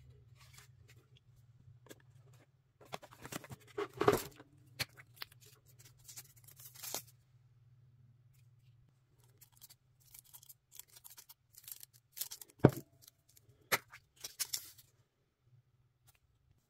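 Hands handling small cardboard and paper packaging: scattered rustling and clicking with a few sharp knocks, the loudest about four seconds in and again near thirteen seconds, with a quiet pause in between.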